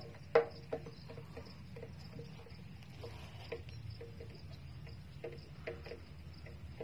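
Outdoor field ambience: insects chirping steadily over a low rumble. A loud plucked-string note sounds about half a second in, followed by fainter notes.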